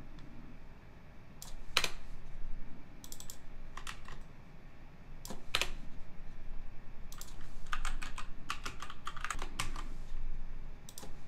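Typing on a computer keyboard in short bursts with pauses, with a few single louder keystrokes and a quick run of keystrokes near the end.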